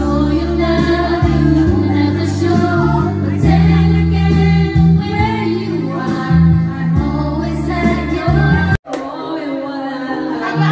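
Karaoke: several women singing together into microphones over an amplified backing track with a heavy bass line. About nine seconds in it cuts off abruptly, and a single voice carries on singing over a quieter backing with sliding notes.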